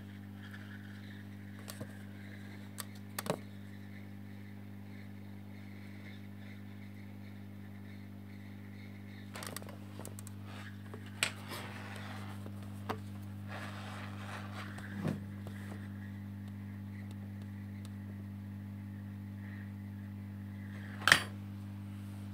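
Hot air rework station running with a steady low hum while the solder on a small relocated resistor on a laptop motherboard is reflowed. A few sharp clicks of tools on the bench, the loudest one about a second before the end.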